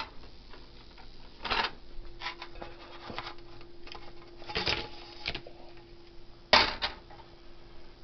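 A nonstick frying pan being handled and tipped over a paper plate, with knocks, clicks and scrapes as fried pizza slices slide out onto the plate; the loudest knock comes a little after halfway. A steady low hum runs underneath from about a second and a half in.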